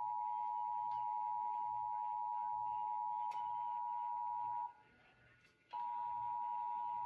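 Emergency Alert System attention signal: the steady two-tone 853 and 960 Hz alert tone. About four and a half seconds in it cuts out for about a second, then resumes.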